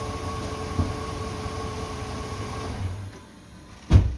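Holden 253 4.2-litre V8 turning over with a steady whine, which stops about three seconds in, followed by a single sharp knock near the end. The carburettor bowls are dry, and it doesn't feel like it's getting fuel.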